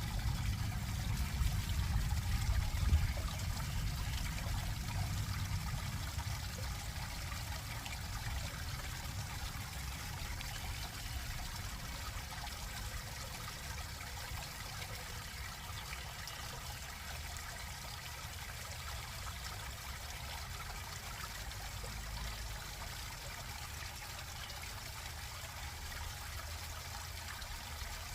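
Water of a small stream trickling and flowing steadily over a low rumble, a little louder in the first few seconds and then even.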